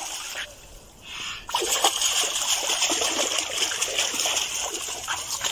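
Children splashing water with their hands in shallow water, a steady run of splashes that gets louder about a second and a half in.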